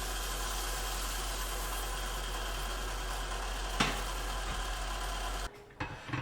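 Kitchen range hood extractor fan running loudly with a steady rush and low hum; the owner thinks something in it is not working properly. There is a single sharp clink about four seconds in, and the fan noise cuts off suddenly near the end, followed by a couple of light knocks.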